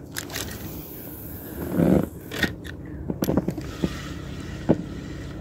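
Spinning rod and reel being handled in an inflatable boat: scattered sharp clicks and scrapes, with a short louder rush of noise about two seconds in.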